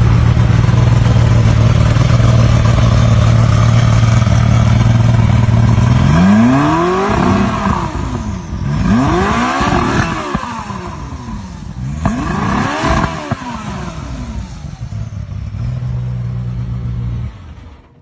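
Czinger 21C's 2.8-litre twin-turbo V8 idling steadily, then revved three times, each rev swooping up in pitch and falling back. It settles back to idle and cuts off abruptly near the end.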